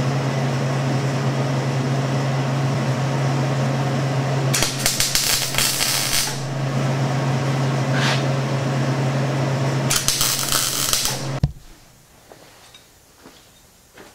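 Electric arc welding a steel washer onto square steel tubing: a steady hum under continuous crackling and sizzling, with two louder spells of hiss, cutting off suddenly about eleven seconds in.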